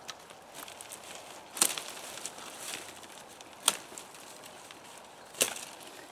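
Basket willow wands being cut at the crown with a pulled hook blade made from an old handsaw: three sharp snaps about two seconds apart, over light rustling of stems and dry litter.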